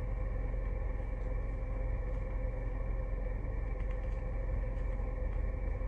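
Steady low hum of a car engine running at idle, heard from inside the cabin.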